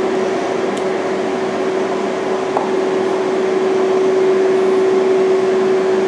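A steady mechanical hum: one constant mid-pitched tone over an even hiss, with a faint tick about a second in.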